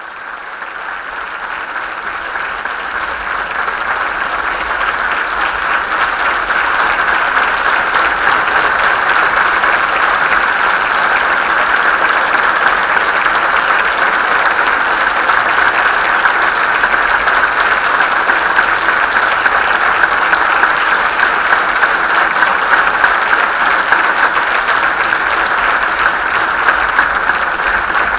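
Theatre audience applauding, the clapping swelling over the first several seconds and then holding steady.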